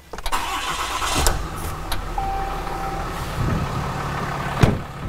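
A 2018 Ram 2500's 6.7-litre Cummins inline-six turbo-diesel starts up and settles into a steady idle. There is a short electronic beep a little over two seconds in, and near the end a sharp thud as the truck's door is shut.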